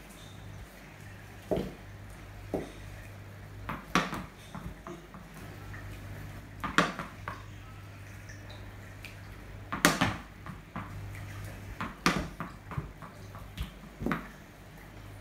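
A tennis ball hit with a wooden cricket bat: about seven sharp knocks a few seconds apart, some coming as a quick double knock of the ball off the tiled floor and the bat, the loudest near the middle. A steady low hum runs underneath.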